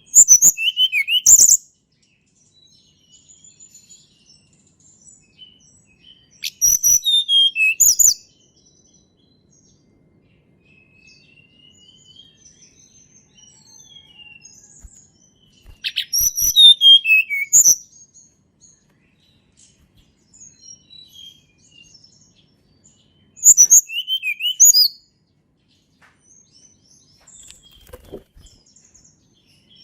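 Tledekan gunung song: four loud bursts of high, quick notes that slide downward, each about a second and a half long and several seconds apart, with faint scattered chirps between them.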